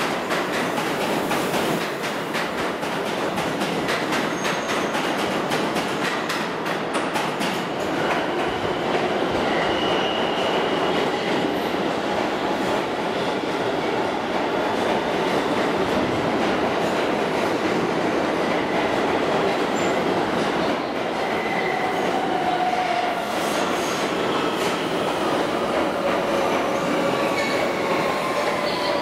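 Subway trains running through an underground station: a steady wheel-on-rail rumble with rapid rail-joint clicks throughout. From about three-quarters of the way in, a falling whine and wheel squeal come in as a train slows at the platform.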